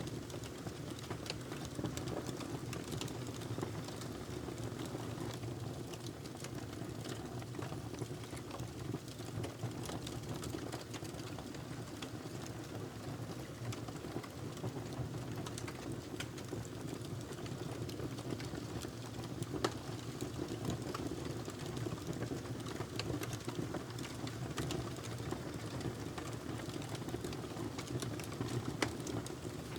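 Wood fire burning in a fireplace: steady low rumble of the flames with irregular small crackles and pops.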